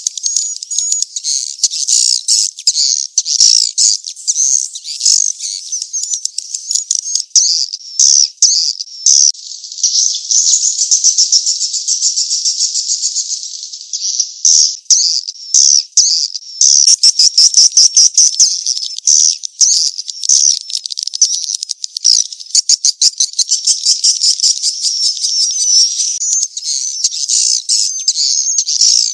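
Swiftlet calls on a swiftlet-house lure track ('mating chase' call): dense high chirps and twitters mixed with rapid buzzing trills, thin-sounding with no low end.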